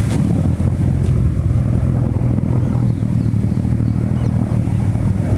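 Steady low rumble of an artificial whirlpool: a basin of dark water spinning and churning down into a deep central vortex.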